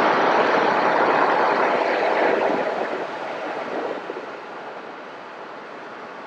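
Road and wind noise inside a moving car: a steady rushing that drops to a quieter level about three to four seconds in.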